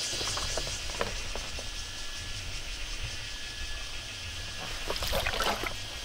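Large plastic water jug handled and drunk from: a few plastic clicks and knocks in the first second or so, then a louder burst of sloshing and splashing water about five seconds in as it spills. Insects chirring steadily in the background.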